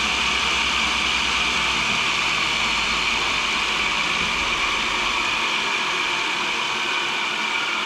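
Cincinnati No. 2 tool and cutter grinder running with its wheel spinning free, a steady whirring hiss. A low hum underneath fades out about five seconds in.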